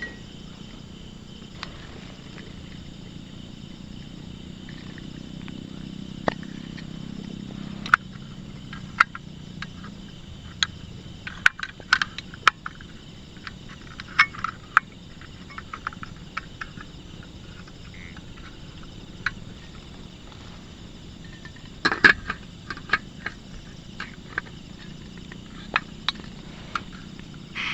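Scattered sharp clicks and taps, thickest about a third of the way through and with a louder cluster near the end, over a steady faint high hum of outdoor background.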